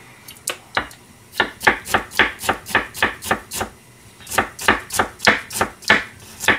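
Kitchen knife chopping on a plastic cutting board, mincing ginger: about twenty quick, sharp knocks at roughly four a second, with a brief pause near the middle.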